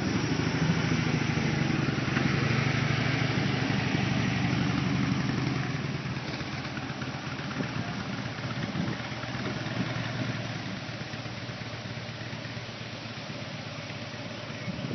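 Harley-Davidson motorcycle's V-twin engine running at low speed, loud at first, then fading after about six seconds as the bike moves off.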